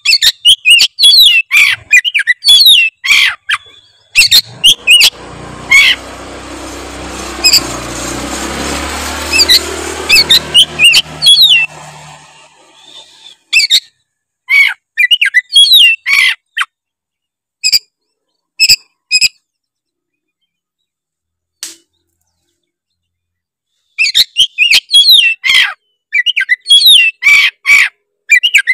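Oriental magpie-robin (kacer) singing loud, fast runs of sharp whistles and chattering notes in bursts, falling silent for several seconds in the middle before starting again. A rushing noise swells under the song early on and fades out by the middle.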